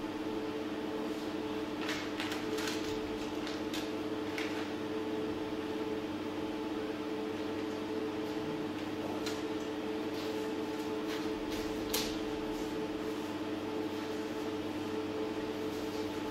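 A steady hum with a few fixed pitches, with faint scuffs and rustles of dancers moving across the stage: a cluster a couple of seconds in, and another before a sharper tap about three quarters of the way through.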